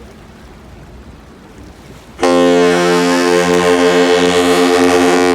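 About two seconds in, a 1,000-foot cargo ship's horn sounds one long, really loud, deep blast at a steady pitch with many overtones, stopping near the end.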